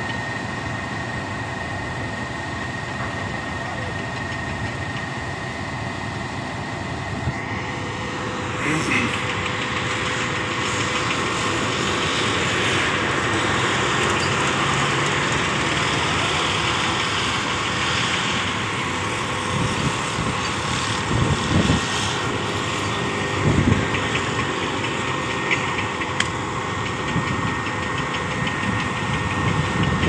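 Truck-mounted concrete boom pump running, its truck engine driving the hydraulics as the boom is folded, with a steady whine over the engine. It gets louder about eight seconds in, and a few short knocks come in the second half.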